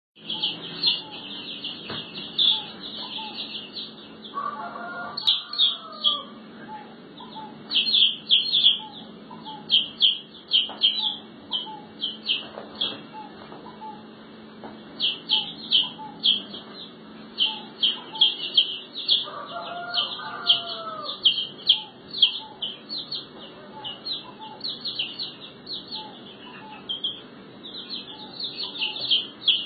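Domestic chicks peeping: rapid, high, short cheeps that keep coming all through. Twice, about five seconds in and again about twenty seconds in, a chicken gives a longer, lower call lasting a second or so.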